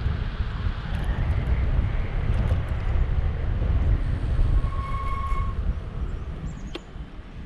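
Wind buffeting the microphone of a camera on a moving electric bicycle, mixed with tyre noise on asphalt. It eases near the end as the bike slows. A brief steady tone sounds about two-thirds of the way through, and a click comes soon after.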